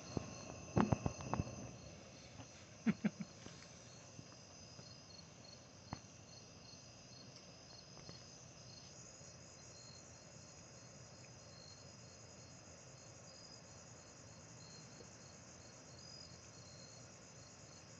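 A steady night chorus of crickets and other insects: several high chirring tones at once, one chirping in a quick even pulse. A cluster of sharp knocks comes about a second in and a pair about three seconds in.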